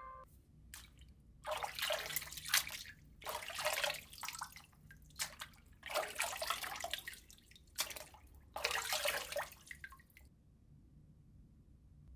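Water splashing and sloshing in a plastic tub as a hand dunks a smartphone in and moves it about, in about five separate bursts.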